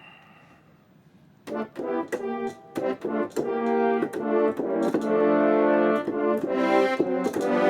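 Yamaha Montage M synthesizer playing its warm orchestral French horn patch: after a quiet first second or so, a few short chords, then longer held chords from about halfway in.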